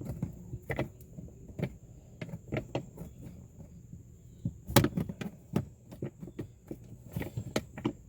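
Irregular clicks and knocks of plastic parts being handled as a Power Wheels foot pedal switch is fitted into its housing, with the loudest knock about five seconds in.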